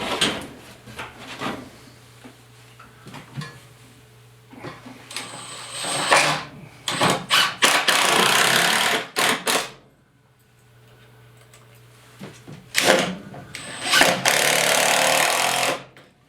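Power drill/driver running in two long bursts, driving screws to fasten a glued plywood sister plate onto a cracked floor joist, with a few knocks before the first burst.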